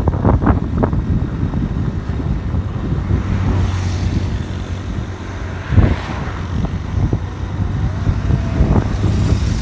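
Riding a motorcycle: wind buffets the microphone over the bike's steady engine hum. From about three and a half to six seconds in, a rushing noise swells and fades as another motorcycle passes alongside, and there is a sharp buffet near the six-second mark.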